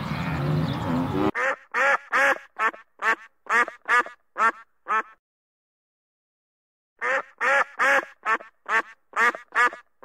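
Duck quacking: a quick run of about ten loud quacks, a pause of about two seconds, then a second quick run of quacks.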